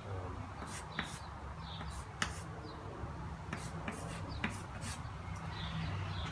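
Chalk tapping and scraping on a chalkboard as letters are written: a series of short, sharp taps.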